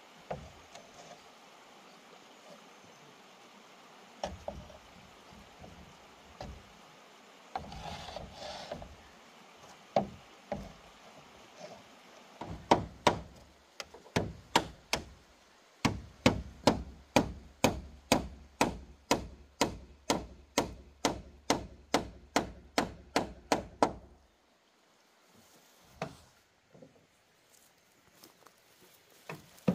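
A hand tool striking wood. There are scattered knocks at first, then a steady run of blows about two a second from about halfway through, a short pause near the end, and the blows start again.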